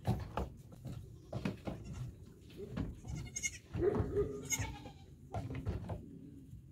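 Baby goats bleating in short calls, mixed with a run of knocks and rustling in the straw.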